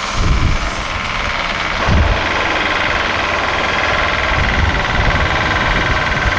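A heavy vehicle's engine running steadily, with a steady whine that grows stronger about two seconds in.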